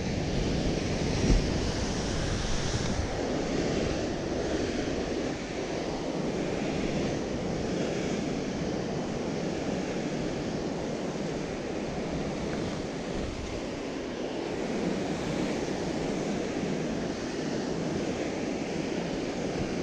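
Ocean surf breaking and washing over rocks at the foot of a sea cliff, a steady rush of water, with wind buffeting the microphone.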